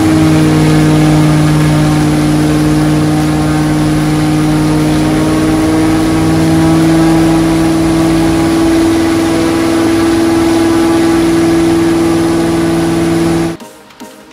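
Aircraft piston engine and four-blade propeller running at high power on a ground run-up after warm-up: a loud, steady drone with an almost constant pitch that cuts off abruptly near the end.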